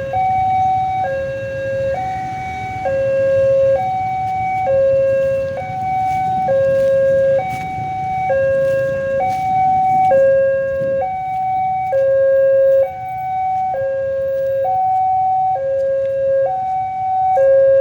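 Railway level-crossing warning siren sounding, two tones alternating high and low, each held just under a second, over a low rumble.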